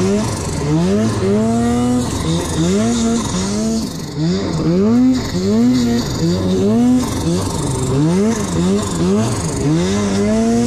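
Arctic Cat Alpha One snowmobile's two-stroke engine revving hard in deep powder. The throttle is worked on and off, so the engine pitch rises and falls again and again, about once a second.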